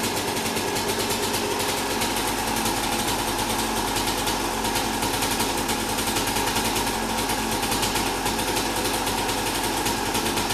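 Gas Gas 125cc two-stroke motorcycle engine idling steadily.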